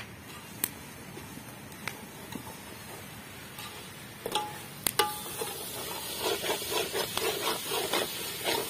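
A metal ladle in a steel cooking pot of chicken over a wood fire. It clinks twice against the pot, ringing briefly, about four to five seconds in. Then comes a run of quick stirring and scraping strokes, several a second, until the end. Before that there are only a faint crackle and a few light ticks from the fire.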